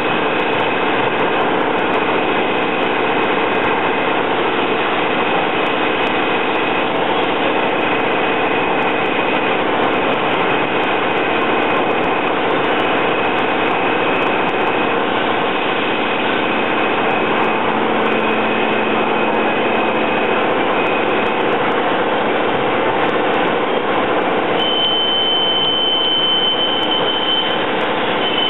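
CNC machine cutting behind its closed enclosure with coolant flooding the part: a steady spray noise with a high tone that comes and goes in passes of a second or two. About three-quarters of the way through, a steady higher-pitched singing tone sets in as the tool cuts stainless steel.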